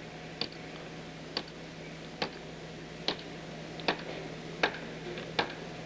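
Mallet tapping aluminum sheet on a forming block held in a vise, crimping a formed angle: seven sharp taps, a little under a second apart, over a steady low hum.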